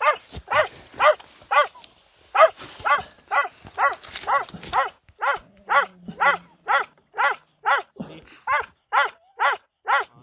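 Hunting dog barking rapidly and steadily, about two barks a second without pause, baying at a badger.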